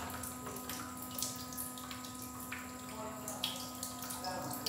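Faint sizzling and bubbling of thick mango halwa cooking in ghee in a pan on a gas flame, with a few soft ticks as cashews and raisins are scattered in.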